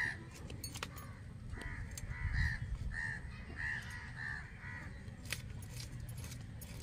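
Hilsa fish scales being scraped off against a boti blade: quick, scratchy clicks. A crow caws about eight times in quick succession through the middle.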